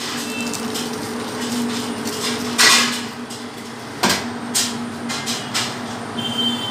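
Aluminium baking tray clanking against a stainless steel counter as it is knocked and lifted off a turned-out slab of brownie: a few metal knocks, the loudest about two and a half seconds in and another about four seconds in, over a steady low hum.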